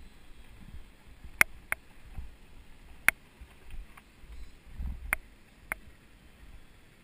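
Mountain bike rolling over a rough dirt forest road: a low rumble of tyres and wind, broken by five sharp clacks as the bike jolts over bumps.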